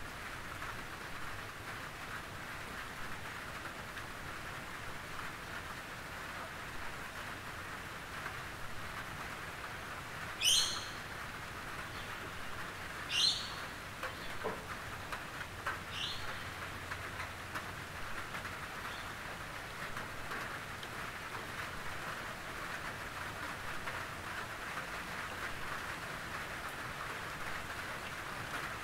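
Steady patter of gentle rain on a tin roof. About a third of the way in, a bird gives three short, high, downward-sweeping calls a few seconds apart.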